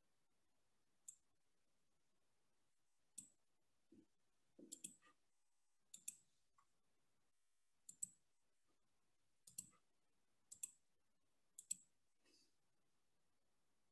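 Sharp clicks from computer input as a slide's text is edited: about ten single clicks spaced irregularly a second or so apart, some in quick pairs, against near silence.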